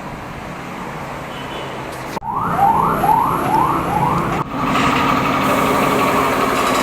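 A siren-like whoop that rises five times in quick succession, followed by a motorcycle engine idling steadily.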